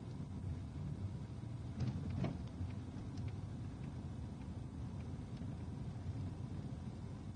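Car driving along a rough narrow road: a steady low rumble of engine and tyres, with a couple of knocks about two seconds in.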